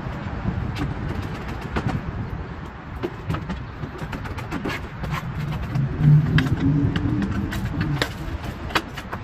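Road traffic rumbling by, with scattered sharp clicks and knocks throughout. A low vehicle engine hum swells about six seconds in and fades near the end.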